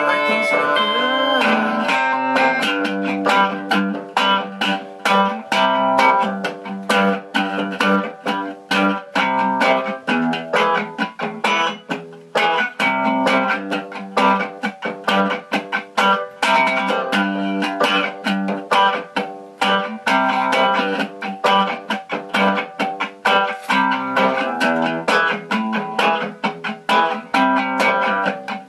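An electric guitar picked in quick single notes together with a small Casio keyboard, the two playing an improvised tune.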